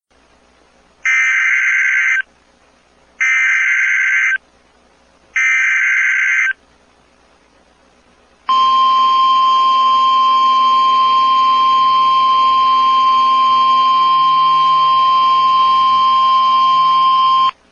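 Emergency Alert System tornado-warning header: three bursts of digital data tones (the SAME header), each about a second long, followed by a single steady alert tone lasting about nine seconds that cuts off abruptly.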